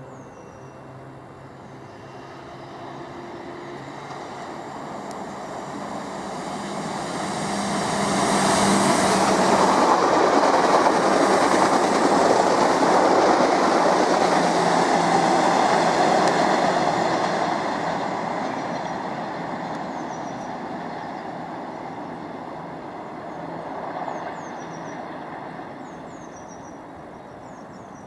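Great Northern Class 313 electric multiple unit running through the station: the rumble of its wheels on the rails builds as it approaches, is loudest for about ten seconds as it passes the platform, then fades away as it recedes.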